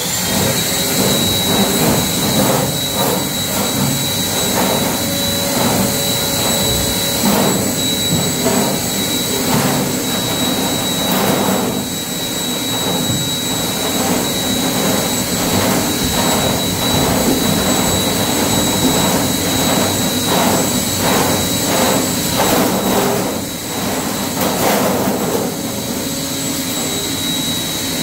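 RIDGID K-50 drain cleaning machine running steadily with a constant high whine, its spinning cable rattling and knocking as it is fed into a drain pipe.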